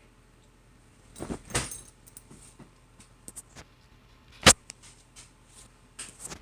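Scattered knocks and clicks of cats pouncing and scrabbling on a hard floor after a laser dot: a quick cluster about a second in, one sharp loud click about four and a half seconds in, and a few more near the end.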